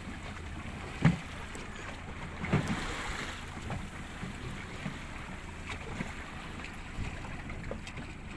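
Wind on the microphone and water sloshing against a boat's hull over a steady low drone, with a sharp knock about a second in and a smaller one about two and a half seconds in.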